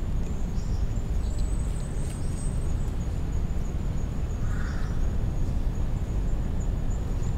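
Steady low outdoor background rumble with a thin, high steady whine running through it, and a brief faint sound about four and a half seconds in.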